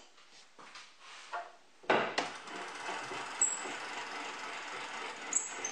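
Homemade plywood table-saw blade-tilt mechanism being cranked by hand. A few light knocks come first, then a sharp knock about two seconds in, followed by steady scraping and rubbing with scattered ticks and faint squeaks as the hand wheel turns the threaded-rod crank and tilts the motor unit on its wooden trunnions. On this first trial the counter nut interferes with a hole under the pillow bearing that is a little too small.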